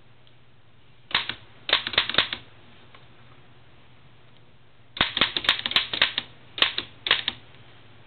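Oliver No. 9 typewriter clacking in short bursts of sharp strikes: a few about a second in, a quick run around two seconds, then a longer run of strikes from about five seconds in, ending in two separate ones.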